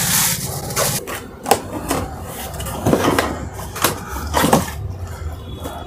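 Cardboard shipping box being handled and shifted: a rustling scrape at first, then several light knocks and bumps spread through, with a low rubbing rumble near the end.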